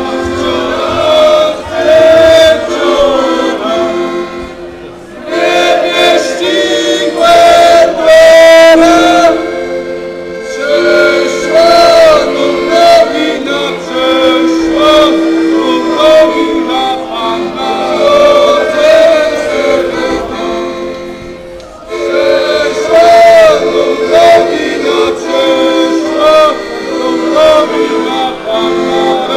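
A group of carolers singing a Christmas carol together in phrases, with an instrument holding steady notes beneath the voices.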